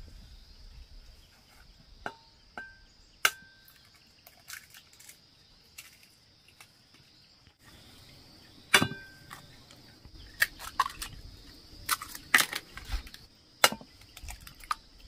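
Sharp taps and cracks of eggs being rapped on the rim of an aluminium pot and broken into it, some taps leaving a brief metallic ring, the loudest about nine seconds in and a run of them near the end. A steady high insect drone sounds behind.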